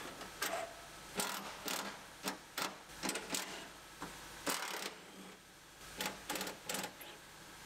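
Irregular short metallic clicks and rattles from a cordless impact driver and its socket working the window regulator bolts inside a vehicle door, with a quick cluster of clicks near the end.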